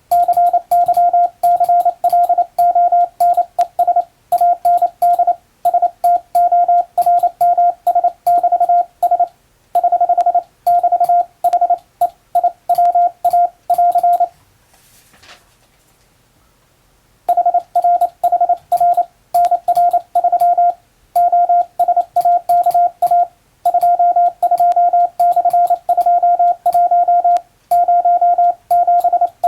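International Morse code sent by hand on a telegraph key: a single steady beep tone keyed on and off in quick dots and dashes, grouped into letters and words. The sending pauses for about three seconds about halfway through, then carries on.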